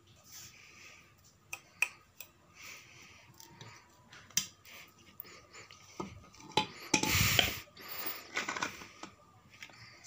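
Clicks, knocks and scrapes from a metal industrial ceiling fan as it is handled and tilted on a tiled floor and its canopy is lifted up the downrod. A louder rough scrape lasts about half a second around seven seconds in.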